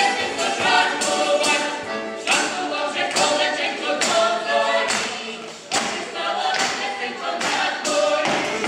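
Ukrainian folk choir of women's and men's voices singing a folk song together, with accordion accompaniment and a beat roughly once a second.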